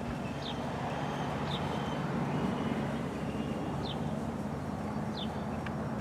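Outdoor ambience: a steady low rumble with four short, high, falling bird chirps spread through it.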